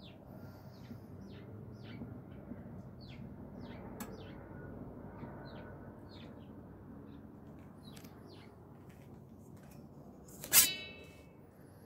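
Stainless steel hopper lid of a pellet stove lifted off, striking with a single sharp metallic clank that rings briefly, near the end. Small birds chirp in short calls throughout.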